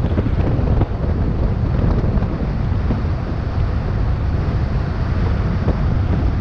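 Wind rushing and buffeting over the microphone of a camera on a bicycle descending a highway at high speed, a dense steady low rumble.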